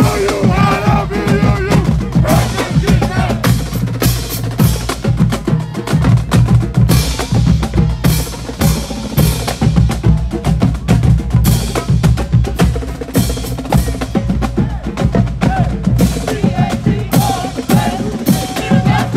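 Marching band drumline playing a marching cadence: snare and bass drums in a dense, steady beat. Brass is heard briefly at the very start and comes back near the end.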